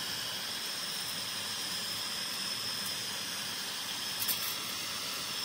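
Steady hiss of background noise. About four seconds in there is a brief faint rustle and snap as chillies are picked from the plant.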